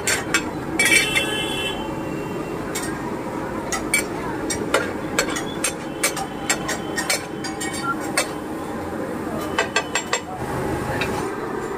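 Metal spatula clanking and scraping on a large iron tawa as bulk pav bhaji is mashed and stirred: a rapid, uneven run of clicks and knocks, with one ringing clang about a second in.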